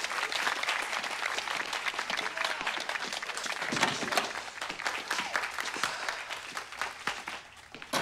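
A small group of people applauding, their claps dying away near the end.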